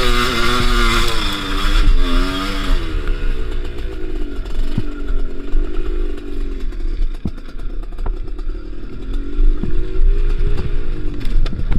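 Kews two-stroke enduro motorcycle engine being ridden, its revs rising and falling. It runs hard for about the first three seconds, then at lower revs, with a few sharp knocks.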